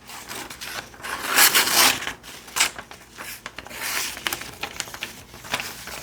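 A freshly sharpened kitchen knife slicing through thin catalog paper: several short papery swishes with small clicks between them, the clean cuts of a sharp edge with no ripping.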